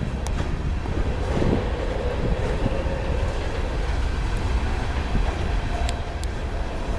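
Norfolk Southern train rolling past with a steady deep rumble and a few sharp clicks from the wheels and cars.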